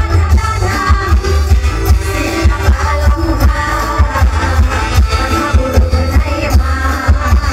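Live mor lam band music with a heavy, steady bass beat, and women singing over it into microphones.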